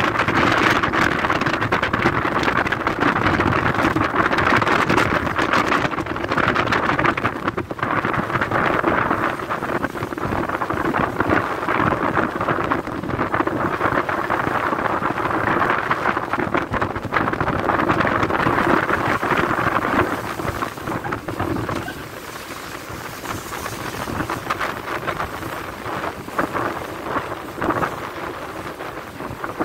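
Wind buffeting the microphone over the rush of heavy seas churning against a cargo ship's hull, a steady rushing noise that eases somewhat about two-thirds of the way through.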